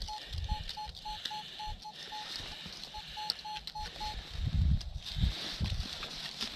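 Metal detector sounding rapid short beeps at one mid pitch, the signal of metal in the ground under the coil; the beeping stops about four seconds in, followed by a few low thuds.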